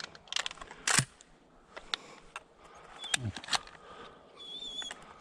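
Handling clicks and knocks, the loudest about a second in. Near the end comes a short, thin, high whistle, held for about half a second.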